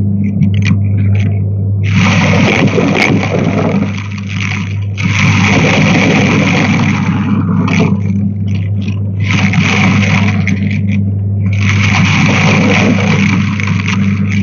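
Vacuum cleaner running with a steady low motor hum. Its rushing air noise swells loud and drops away four times.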